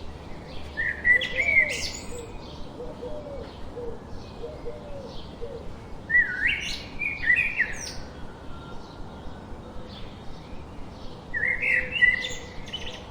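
Birds singing: one bird gives a loud short song phrase three times, about every five seconds, over the faint, steady, repeated chirping of other birds.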